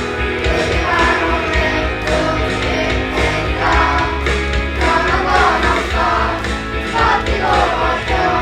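A class of students singing a song in unison, over a pop backing track with a steady bass.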